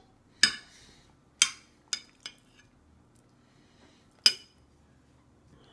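Metal food bowl clinking as a toddler picks pasta out of it: five sharp clinks with a short high ring, the first and last the loudest.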